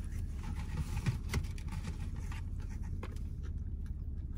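Chewing and small mouth clicks of someone eating, over a steady low hum inside a car's cabin.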